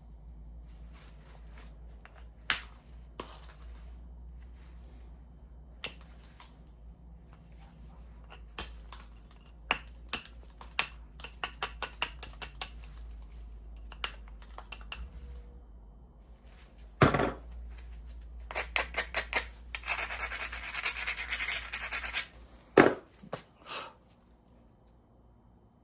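Flintknapping on a flint piece: stone tools clicking and scraping against the stone, with a quick run of light ticks partway through, two louder knocks, and a stretch of steady scraping about twenty seconds in.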